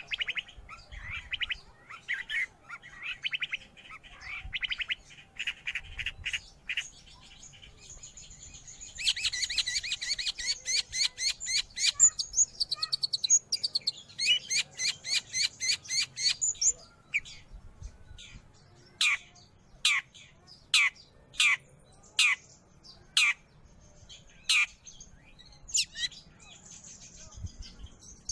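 Long-tailed shrike (cendet) singing: harsh chattering phrases, then a long burst of fast, rapid trills, then a run of sharp single notes about a second apart.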